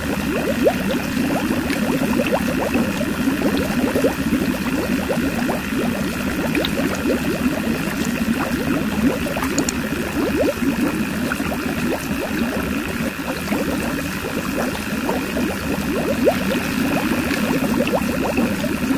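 A thin stream of water from a toy pump's outlet pipe pours into a small concrete tank, splashing and gurgling steadily as the tank fills. A steady high hum from the small DC motor driving the pump runs underneath.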